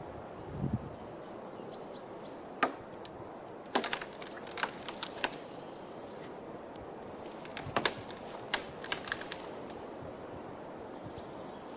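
Wood snapping and cracking in irregular sharp snaps, some single and some in quick clusters, as broken branches are handled and broken up.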